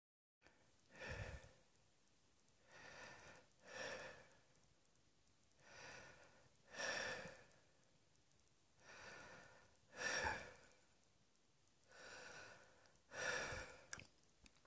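A person breathing slowly and audibly, about five breaths in and out at roughly three-second intervals, some with a sigh-like out-breath.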